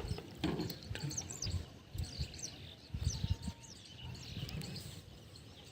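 Small birds chirping, a run of short high calls throughout, with irregular low thuds and knocks mostly in the first few seconds.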